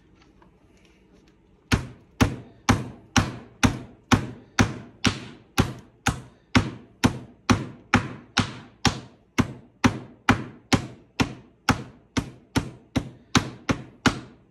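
Metal meat mallet pounding one-inch venison backstrap steak on a plastic cutting board, tenderising it for country fried steak: steady, evenly spaced blows about twice a second, starting about two seconds in.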